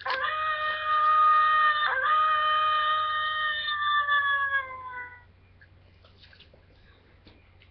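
Monster High Ghouls Alive Clawdeen Wolf doll's sound feature playing a wolf howl: one long howl of about two seconds, then a second that slides down in pitch and fades out about five seconds in.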